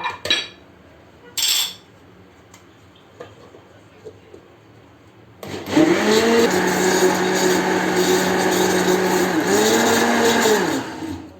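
Electric blender mixing crêpe batter of flour, milk and eggs: after a short clink, the motor starts about five seconds in, spins up to a steady whir, dips briefly and picks up again, then winds down near the end.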